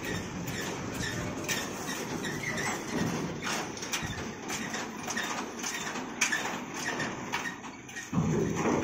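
Loaded cargo truck driving slowly across a steel ferry pontoon and ramp, its diesel engine running under load, with repeated knocks and clanks as the wheels roll over the plates. A louder, deeper surge comes near the end.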